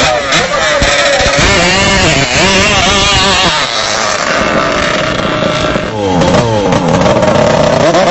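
Turbocharged racing longtail boat engines running hard, their pitch swinging up and down again and again as they rev.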